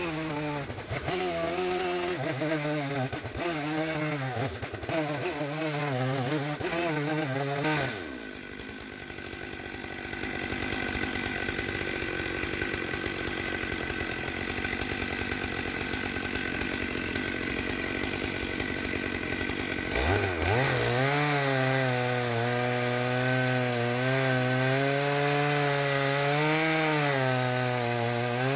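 Stihl 661 chainsaw on an Alaskan chainsaw mill cutting through the log, its engine pitch wavering up and down under load. About 8 seconds in it changes to a quieter, steadier noise. About 20 seconds in the saw revs up and goes back to cutting with the same wavering pitch.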